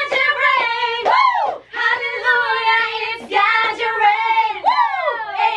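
Women's high voices singing, with notes held and swooping slides up and down in pitch.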